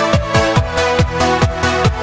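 Electronic dance music with a steady, fast kick-drum beat over held synth tones.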